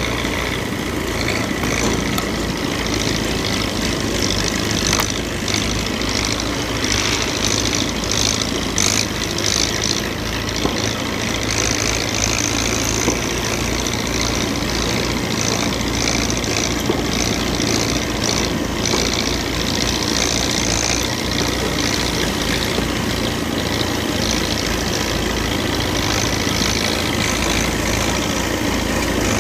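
Belarus 825 tractor's diesel engine running steadily under load as it pulls a disc plough through ploughed soil.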